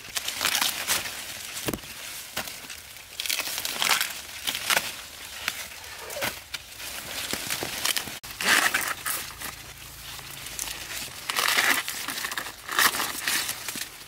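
Dry corn leaves and husks rustling and crinkling, with short tearing sounds, as young corn ears are handled and picked. The bursts come irregularly, with one sharp snap about eight seconds in.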